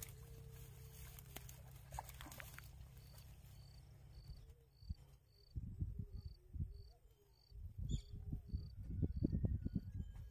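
A short high chirp repeats about twice a second, typical of an insect, starting about three seconds in. Under it is low rumbling that breaks into irregular bursts in the second half.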